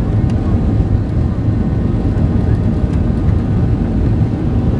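Boeing 737 on its takeoff roll, heard from inside the cabin: jet engines at takeoff thrust with a loud, steady low rumble.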